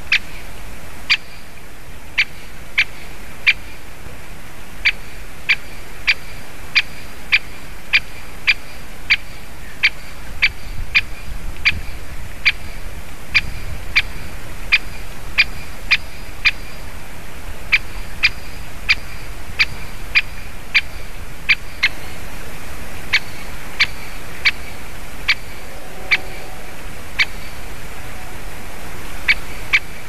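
Great spotted woodpecker repeating its short, sharp single-note call, about one to two calls a second, slowing after a brief pause about two-thirds of the way through, over a steady background hiss.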